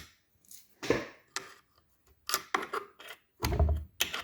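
Scattered clicks and knocks of hand tools and metal parts being handled on a Powerglide transmission under teardown, with a heavier knock a little past three seconds in.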